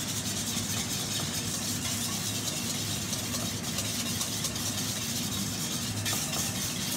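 Wire whisk beating a small batch of honey-mustard dressing in a stainless steel bowl: a fast, even scraping, over a steady low mechanical hum.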